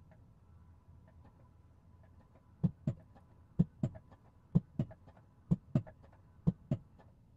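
Battery swap station machinery working beneath the car, heard from inside the cabin: a faint steady hum, then from about two and a half seconds in five pairs of dull knocks, roughly one pair a second.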